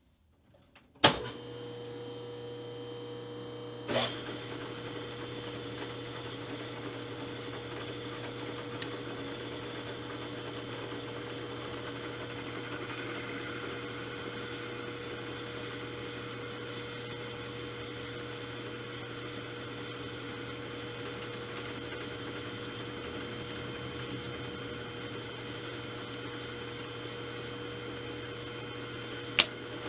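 Milling machine started with a sharp knock about a second in, then running with a steady electric hum while a boring head takes a light 15-thousandths cut. A smaller knock follows a few seconds later and another sharp one near the end.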